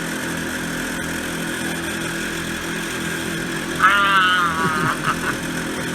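Steady mechanical drone made of several fixed tones, with a short wavering high-pitched cry about four seconds in.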